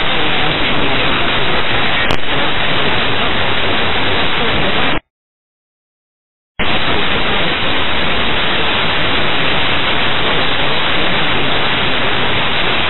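Steady radio static hiss from an air traffic control frequency recording between transmissions, with a brief click about two seconds in. The hiss cuts out completely for about a second and a half near the middle, then returns unchanged.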